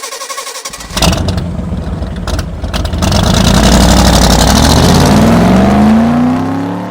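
Chevy S10's 4.3-litre V6 engine: it starts about a second in, turning over and firing unevenly, then runs up with a steadily rising pitch before fading away near the end.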